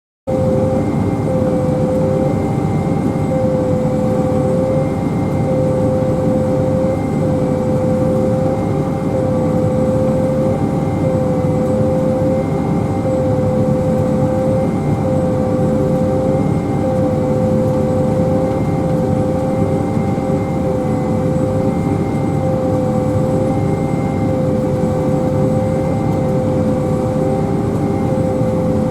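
Pea viner running steadily: a constant heavy machine drone with a whine that dips briefly and comes back at a regular beat, roughly every couple of seconds.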